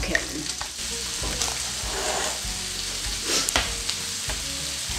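Steady sizzling of food frying in a pan on a gas range, with a few light clicks and taps from hands working in a mixing bowl.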